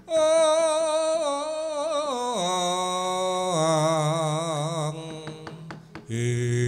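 Sung vocal line from a Javanese wayang kulit performance with gamelan: one voice holds long notes with vibrato, stepping down in pitch about two and three and a half seconds in, and breaks off about five seconds in. A few light knocks follow, and another held musical tone starts near the end.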